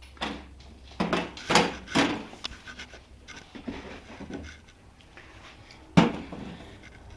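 Beer cans and cardboard packaging being handled: a quick run of knocks and rubbing in the first two seconds, quieter shuffling, then one sharp knock about six seconds in as a can is set down.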